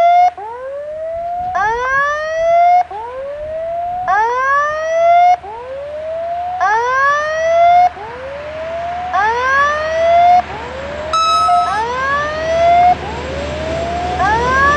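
Railway level crossing's electronic warning sounder going off, a rising whoop repeated about every 1.2 s with every other whoop louder, while the crossing is closed for an approaching train. A short horn blast sounds about 11 s in, and the rumble of the oncoming train swells near the end.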